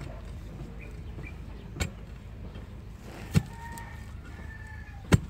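A long digging bar stabbed down into the earth to dig out purple yam (ube) tubers: three sharp thuds about a second and a half apart, the last the loudest.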